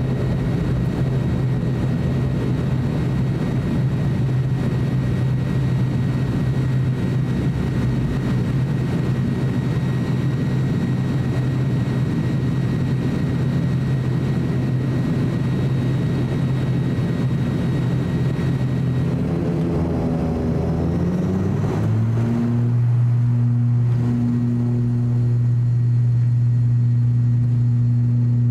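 ATR 42-600's twin Pratt & Whitney PW127 turboprop engines and propellers heard from the cabin, a steady low drone. About twenty seconds in, the pitch glides up and settles into a louder steady tone as power is brought up for takeoff.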